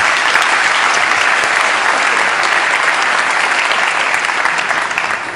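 Audience applauding, a steady dense clapping that dies away near the end.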